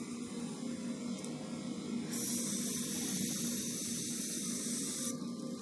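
Sub-ohm dual-coil vape with 0.17-ohm fused Clapton coils being fired and drawn on: a steady hiss of the coils and the air pulled through them, starting sharply about two seconds in and cutting off after about three seconds.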